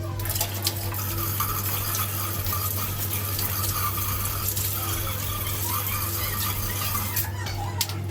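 Water running steadily, likely rinsing the aircon parts being cleaned, over a steady low hum.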